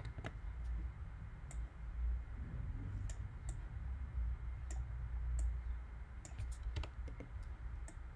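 Scattered light clicks from computer input during on-screen editing, about a dozen at irregular intervals. A steady low hum runs underneath.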